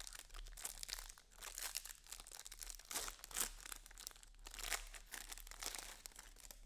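Foil wrapper of a Bowman Jumbo baseball card pack being torn open and peeled back by hand: a dense, irregular run of sharp crinkles and crackles.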